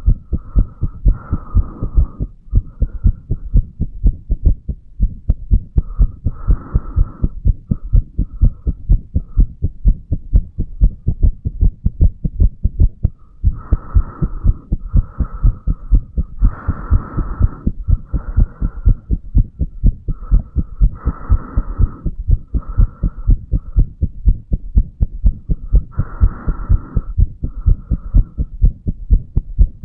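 Human heartbeat heard at the chest over the mitral valve area: a steady run of low lub-dub thumps, with a brief irregular beat a few seconds in.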